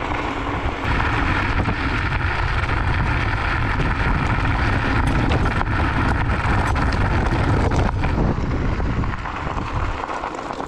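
Wind rushing over the camera microphone and the Varla Eagle One electric scooter's knobby off-road tyres rolling over loose gravel and dirt at speed, with scattered clicks and rattles from stones and the scooter. The rumble dies down near the end.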